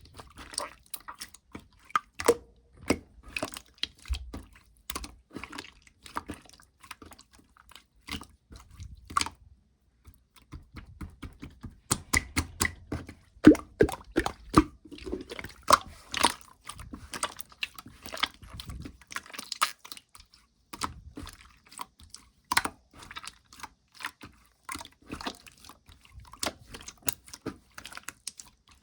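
Hands playing with slime: a steady stream of irregular wet clicks, pops and squishes, with a pause of about two seconds roughly a third of the way in.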